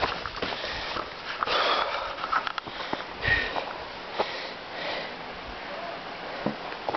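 A runner breathing hard in short audible breaths, with only a few scattered footfalls.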